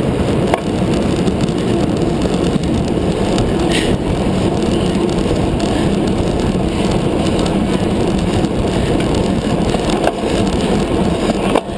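Steady rush of wind buffeting the microphone of a handlebar-mounted camera on a racing bicycle at speed.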